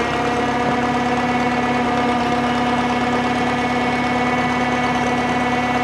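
Drott 85RM2 crane's engine running steadily, with several steady tones that hold an even pitch.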